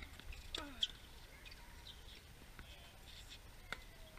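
Tennis rally sounds on an outdoor hard court: a few sharp knocks of the ball being struck by racquets and bouncing, the loudest about a second in and another near the end. A short squeal falling in pitch comes just before the first knock.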